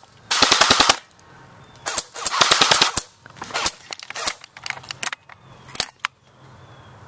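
Airsoft M4 rifle firing on full auto: two rapid bursts of about a second each, one just after the start and one about two seconds in, followed by scattered single shots and short strings of shots.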